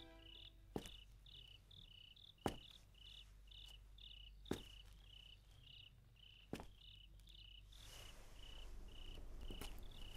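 Crickets chirping quietly in a steady, even pulse of short high chirps, about two a second. A few sharp soft knocks fall about two seconds apart, and a faint rustle rises near the end.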